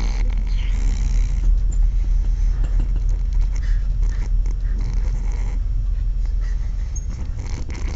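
Snoring, in irregular breaths over a steady low rumble.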